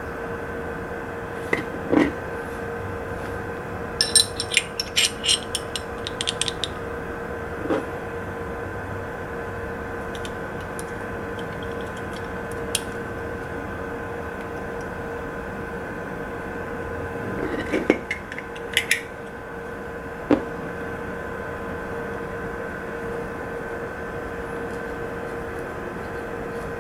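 Small parts of a disassembled Glock 43 pistol handled by hand: scattered light clicks and taps of the barrel, slide and frame, including a quick run of about a dozen sharp clicks about four seconds in, over a steady background hum.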